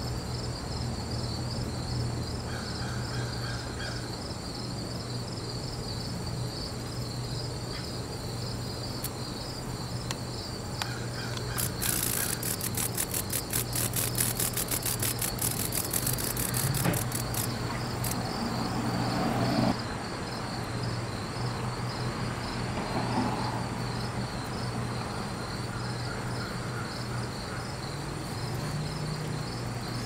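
Crickets chirping in an even, pulsing chorus over a low steady hum. About twelve seconds in, a cicada gives a harsh buzz of rapid pulses lasting about five seconds.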